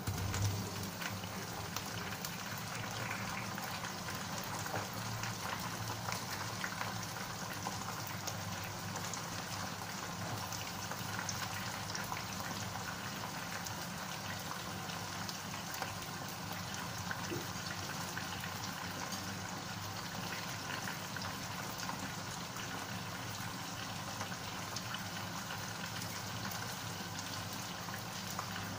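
Onions, curry leaves, dried chillies and fresh tomato wedges frying in oil in a wok: a steady sizzle with many small crackles as the tomatoes are briefly fried before water goes in.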